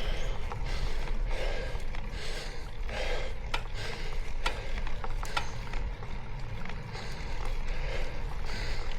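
A cyclist's heavy, rhythmic breathing on a steep climb, about one breath a second, over a steady low rumble, with a few sharp mechanical clicks around the middle.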